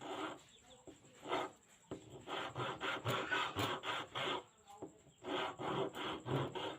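Hand filing or rasping: rhythmic back-and-forth scraping strokes, about three a second, in runs with short pauses, as part of working on an old knife.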